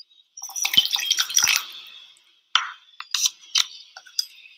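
Water poured and splashing into a glass beaker for about a second and a half, followed by a few short taps.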